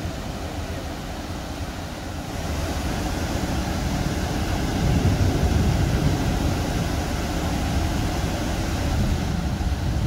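Flash-flood torrent of muddy water rushing down a rocky wadi: a steady rush of water that grows louder about two and a half seconds in.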